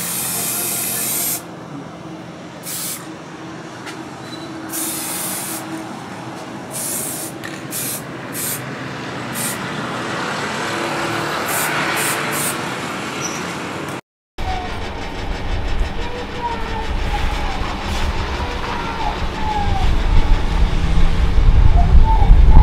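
Aerosol spray-paint can hissing in a series of short bursts as the cleaver blade is sprayed, over the steady whir of a small electric fan. After a cut a little past halfway, a low rumble takes over and grows louder toward the end.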